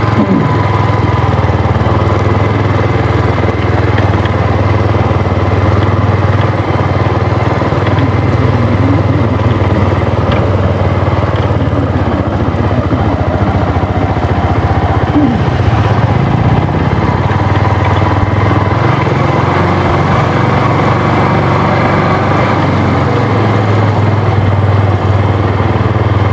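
Motorcycle engine running steadily while riding, under a loud, even rush of road and wind noise.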